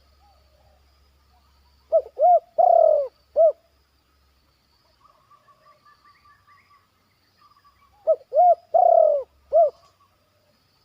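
Spotted dove cooing: two phrases of four coos, short-short-long-short, about six seconds apart. Faint chirps of other birds come between the phrases.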